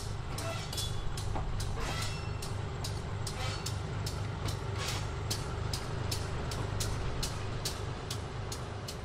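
Diesel switcher locomotive's engine running steadily as it moves slowly along the siding, with a fast run of sharp clicks from the wheels on the rails and a brief metallic squeal in the first two seconds.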